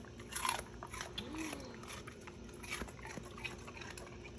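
Chocolate Labrador chewing pieces of raw red bell pepper, with a string of short wet crunches.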